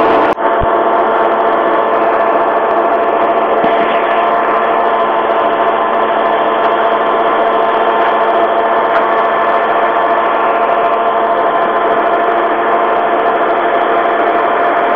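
Claas Lexion 480 combine harvester running steadily while harvesting rice: a constant mechanical drone with several steady ringing tones over a hum. The sound drops out briefly just after the start.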